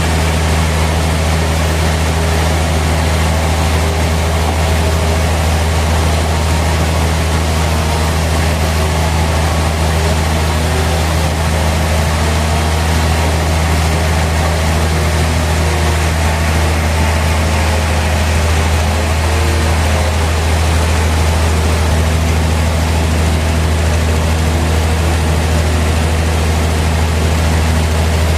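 Sawmill machinery running: a steady, loud, low engine-like hum that does not change, with no sign of a blade entering wood.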